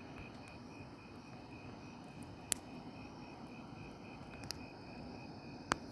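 Quiet outdoor ambience: a steady low hiss with a faint, evenly pulsing high chirp, broken by three sharp clicks.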